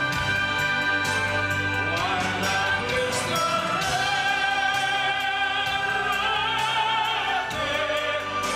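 Live orchestra playing, joined about two seconds in by an operatic voice singing long held notes with wide vibrato.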